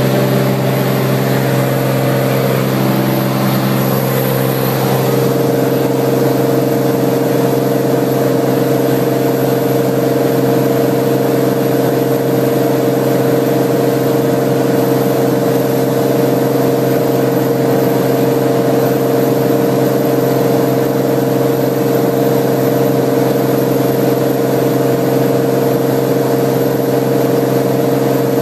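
Cirrus SR20's single piston engine and propeller running with a steady drone; its pitch shifts a few seconds in, then holds steady.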